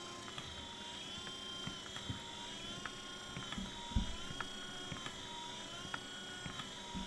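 Car windshield wiper motor running under feedback speed control: a steady whine that wavers up and down in pitch in a repeating cycle, with light clicks. A sharp knock about four seconds in comes as a hand grabs and loads the output crank, slowing the motor until the controller brings the speed back up.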